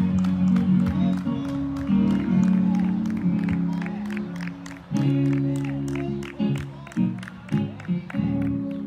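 Instrumental church music: held low chords that change every second or two, over a steady ticking beat about three times a second.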